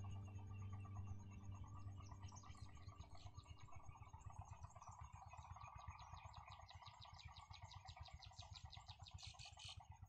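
Soft background music fading out over the first few seconds, then near-silent outdoor ambience with a faint, rapid, even chirping, about five a second, a little louder just before the end.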